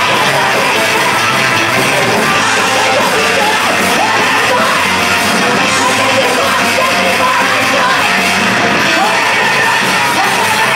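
A rock band playing live and loud: a woman yelling the vocals into a microphone over electric guitar and drums.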